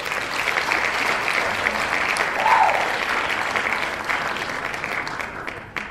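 Crowd applause: dense, steady clapping that fades away near the end.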